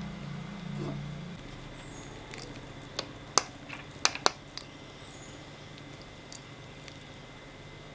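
Steel ladle scooping soft ven pongal out of an aluminium pressure cooker into a bowl: soft squishing, with a few sharp knocks of the ladle about three to four seconds in. A low hum stops about a second and a half in.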